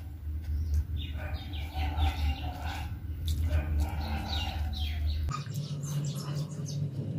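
Birds chirping in repeated short calls, over a low steady hum that steps up in pitch about five seconds in, with soft chewing and mouth clicks from someone eating rice by hand.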